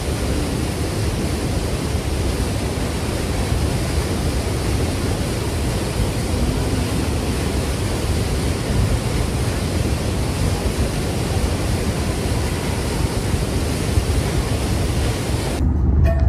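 Steady rushing of a waterfall's falling water, an even wash of noise. It cuts off abruptly near the end.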